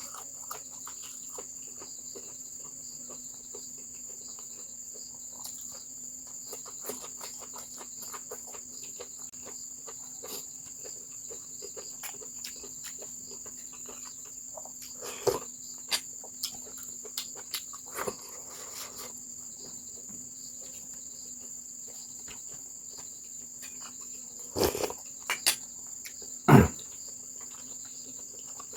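Crickets trilling steadily in the background. A few short clicks and knocks break in, mostly in the middle and near the end.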